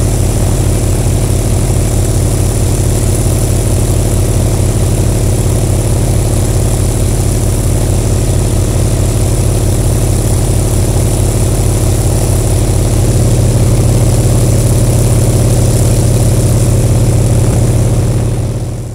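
Propeller engine of a Yak-52-type plane idling steadily on the ground while its smoke system runs. It gets a little louder about two-thirds of the way in, then dies away at the very end.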